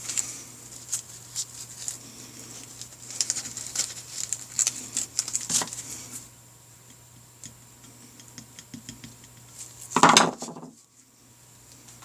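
Small clicks and taps of hands and a tool pressing epoxy putty into a threaded hole in an aluminium motorcycle cylinder head, busy for the first six seconds and then sparse. About ten seconds in comes one louder scraping rush lasting half a second, over a steady low hum.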